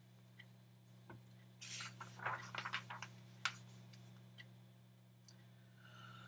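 A page of a large paperback picture book being turned by hand: paper rustling and flapping for about two seconds, ending in a light tap, over a faint steady hum.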